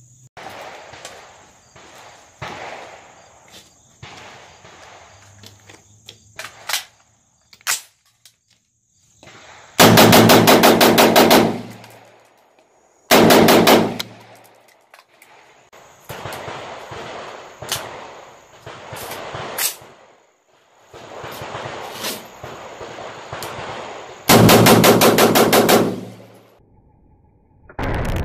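Gunfire from a cheap short-barrelled AR-15: fast strings of shots fired in quick succession, a long string about ten seconds in, a short one a few seconds later and another long one near the end, with single shots scattered between.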